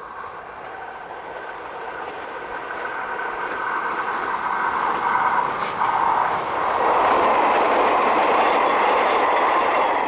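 381 series 'Yakumo' limited express electric train approaching and passing close by, its running noise on the rails growing steadily louder and loudest in the last three seconds.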